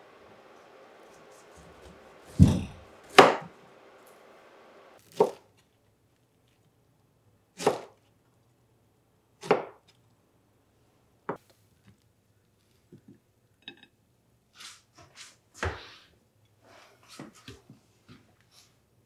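Chef's knife chopping through a pineapple onto a wooden cutting board: about five loud chops a couple of seconds apart, then lighter taps and clicks in the second half.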